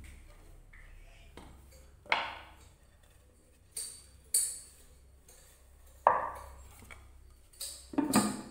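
Wooden lid and large carved wooden pot knocking against each other and the floor as they are handled and the lid is set back on: about seven separate wooden knocks, the loudest about two seconds in, about six seconds in and near the end.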